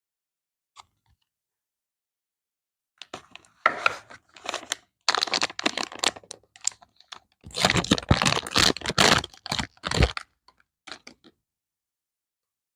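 Packaging being handled and torn open by hand: a long run of irregular crinkling, crackling and tearing, densest and loudest in its second half, stopping a little before the end.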